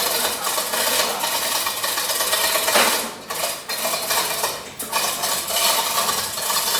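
Many pieces of tube ice clattering and clinking against one another and against metal, a dense, continuous rattle as ice pours out in bulk.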